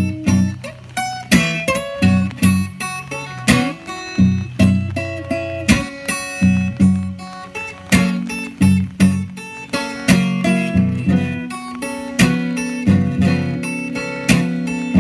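Acoustic guitar playing a blues instrumental break: steady plucked bass notes under higher picked and strummed notes, without singing.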